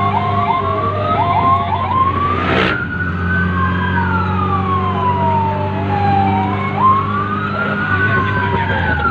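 Fire truck sirens heard from inside the cab while under way: a fast yelp for the first two seconds, then slow rising-and-falling wails, over the steady drone of the engine.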